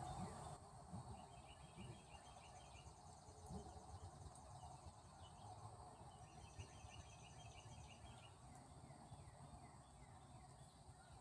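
Faint bird calls: short chattering trills repeated in two bouts, about two seconds in and again near seven seconds, over a low outdoor rumble.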